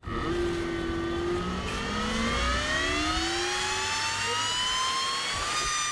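Homemade table fan built from a high-RPM CPU fan spinning up to speed: a whine that rises steadily in pitch and levels off into a steady tone about five and a half seconds in.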